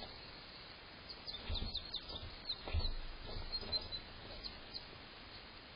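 Faint bird chirps, many short high notes with quick pitch glides in a loose run, together with two soft low thumps, the louder about three seconds in.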